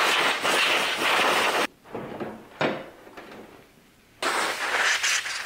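Compressed-air blow gun hissing in two blasts of about two seconds each, blowing off a parking-brake cable, with light clatter of the cable in the pause between.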